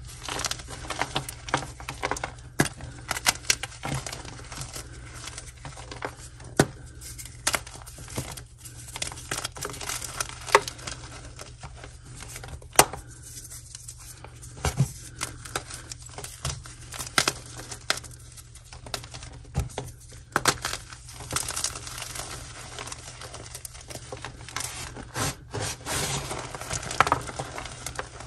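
Blocks of dyed gym chalk being squeezed and broken in the hands: sharp cracks and snaps at irregular intervals over a dry, gritty crumbling.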